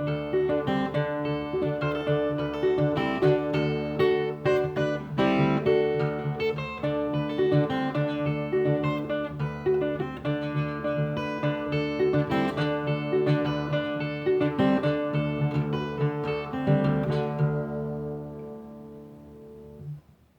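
Acoustic guitar in the open 'rio abaixo' tuning, fingerpicked in the style of the Northeastern Brazilian repente viola: a quick run of plucked melody notes over low open strings that keep droning underneath. Near the end the picking stops and the last notes ring away until they are cut off.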